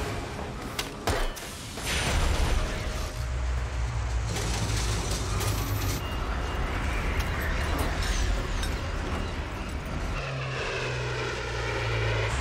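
Sharp impacts at the start, then the steady low drone of a turboprop cargo plane's engines and propellers in flight, with a sweeping whoosh near the end as the plane passes.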